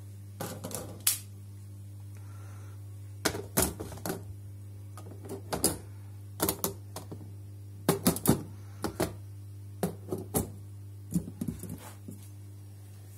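Clear acrylic formicarium parts being handled: sharp plastic clicks and taps in irregular clusters, over a steady low hum.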